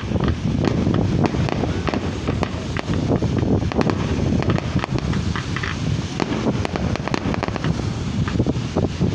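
Aerial fireworks bursting: a rapid, irregular string of sharp pops and crackles over a constant low rumble.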